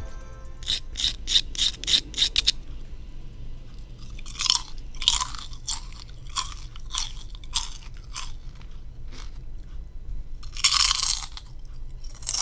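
Potato chips being crunched and chewed up close: a quick run of crisp crackles in the first two seconds, then scattered crunches, and a longer loud crunch about eleven seconds in.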